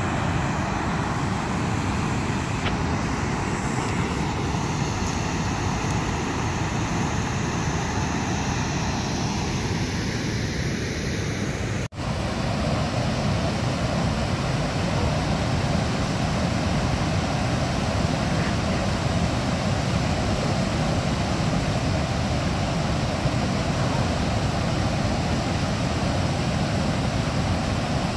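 Steady rush of water pouring over a river dam's spillway and churning below it. The sound drops out for an instant about twelve seconds in.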